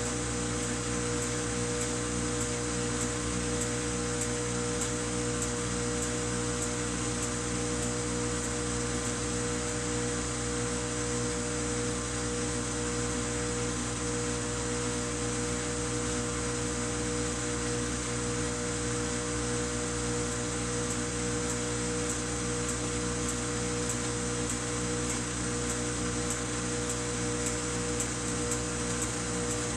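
Samsung front-loading washing machine spinning at a steady speed, its motor giving an even whine over a rushing noise.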